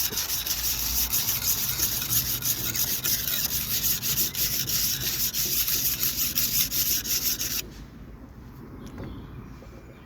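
Steel knife blade being ground against an abrasive sharpening wheel: a continuous gritty rasping that stops abruptly about three-quarters of the way through. The blade is still blunt, with the edge not yet taking.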